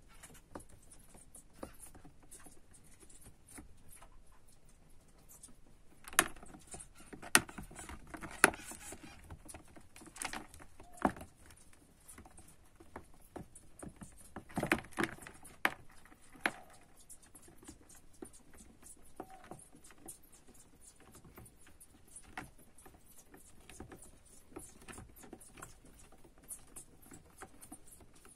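A hamster's claws scrabbling and tapping on the floor and walls of a clear plastic tub: a run of small light clicks, with clusters of sharper, louder knocks about a quarter of the way in, around the middle and just past the middle.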